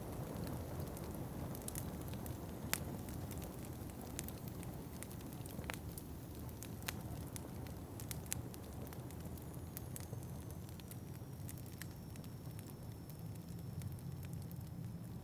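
Wood fire crackling in a fireplace, with irregular sharp pops over a steady low rumble of wind.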